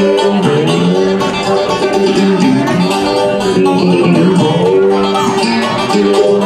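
Live band music with a banjo being picked, under long held notes from other instruments.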